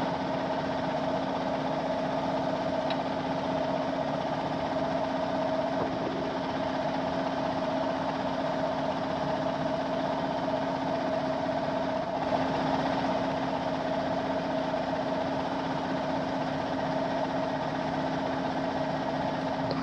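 A 1974 John Deere 6600 combine's engine idling, a steady, even hum.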